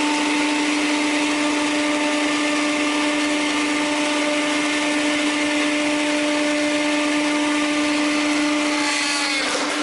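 Mixer grinder's electric motor running at steady high speed: a loud even whir with a steady hum under it.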